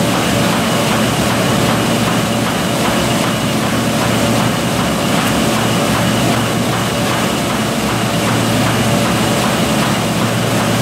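Pocket-type window-envelope making machine running at speed: a loud, steady mechanical din over a constant hum.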